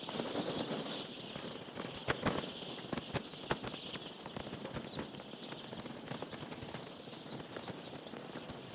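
Flock of chickens in a poultry house: many sharp taps and knocks, thickest in the first few seconds, over a steady high-pitched chorus of chirping.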